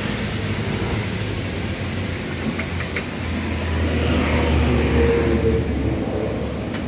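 Road traffic: a motor vehicle passing on the road, its low engine rumble growing louder and then fading, loudest about four to five seconds in.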